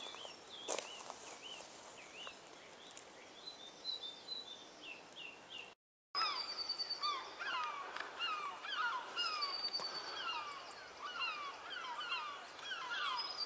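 Wild birds singing outdoors, many short falling chirps overlapping. The song is sparse at first and much busier after a brief silent gap about six seconds in.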